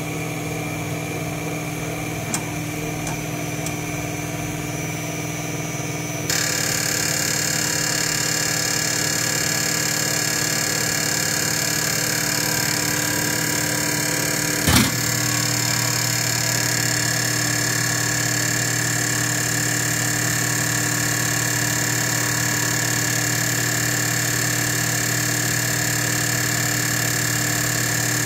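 Common-rail injector test bench running steadily, its motor-driven high-pressure pump and injectors giving a constant mechanical hum with high whining tones. About six seconds in it grows louder and brighter, and near fifteen seconds a single short knock comes, after which the low hum settles slightly lower.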